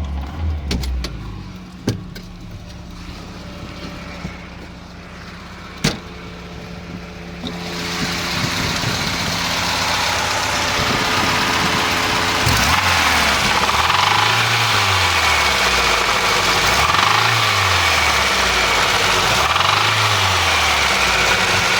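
VAZ 2106 inline four-cylinder engine idling with two sharp clicks, then brought up to raised revs about a third of the way in and held there, the revs swelling and dropping a few times in the second half. This is the range where the warm engine develops a knock that its owner cannot place; the knock appeared while the oil pressure lamp was lit.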